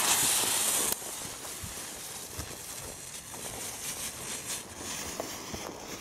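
A small Pyroart Glühwürmchen ground light firework being lit: its fuse hisses and spits loudly for about a second, cutting off suddenly, then the firework burns with a quieter steady hiss and faint crackle.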